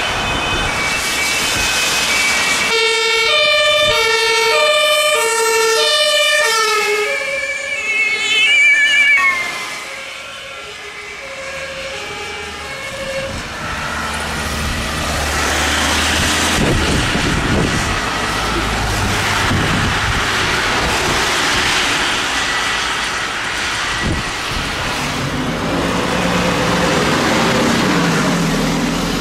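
German two-tone emergency sirens (Martinshorn) on a rescue ambulance and an emergency doctor's car, alternating high and low notes about every second and a half. They are loudest as the vehicles pass close, drop in pitch as they go by about eight seconds in, then fade away. After that comes the steady rush of tyres on the wet road as traffic passes, and near the end a two-tone siren sounds again, faint and low.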